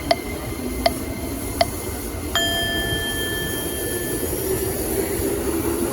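Train running past with a steady low rumble, with three sharp metallic clicks about three-quarters of a second apart, then a single ringing ding a little over two seconds in that fades away slowly.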